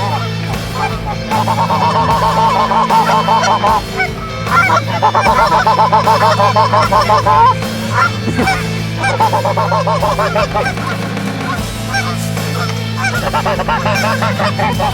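Canada goose honking in four fast, rhythmic runs of a few seconds each, with short gaps between runs.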